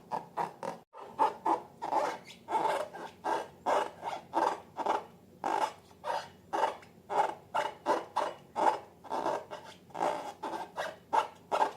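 Slime being worked by hand, with short wet squishing and scraping sounds repeating about two to three times a second and a brief break about a second in.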